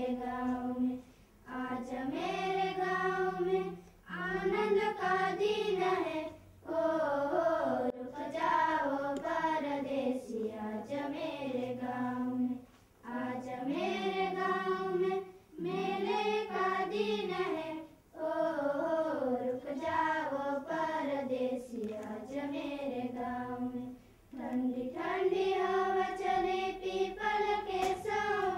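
A group of children singing together in unison, in sung phrases of a few seconds each with brief pauses for breath between them.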